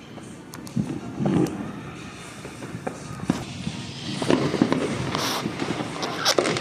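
Distant fireworks going off: scattered sharp bangs and pops with crackling between them, coming thicker and louder from about four seconds in.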